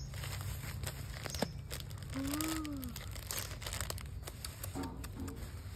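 Bubble wrap and plastic packaging crinkling and crackling as a package is unwrapped and a plastic-sleeved notebook is slid out. About two seconds in, a short pitched call rises and falls once.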